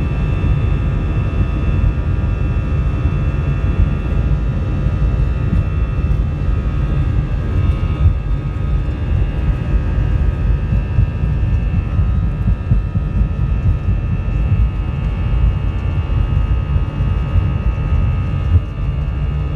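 Airbus A321 jet engines at high takeoff thrust, heard from inside the cabin: a loud, steady low rumble with a steady high fan whine over it.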